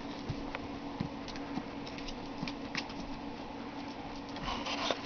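A wolf-hybrid puppy's claws clicking and pattering faintly as it walks off a fleece pad onto a tile floor, a few scattered ticks with a busier cluster near the end, over a steady hum in the room.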